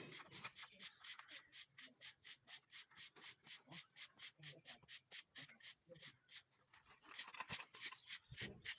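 Insects chirping: a fast, even pulsing of about five chirps a second, with a higher short buzz repeating under it.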